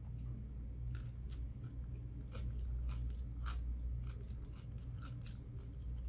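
A person chewing a cold taco whose tortilla has gone hard, with scattered small crunches and mouth sounds, over a steady low hum.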